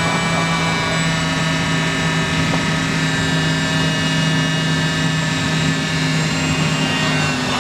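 Twin Garrett ATF3-6 turbofan engines of an HU-25C Falcon jet at takeoff power, heard inside the cabin: a steady jet roar with a whine of many high tones over a low hum. The low hum cuts off near the end.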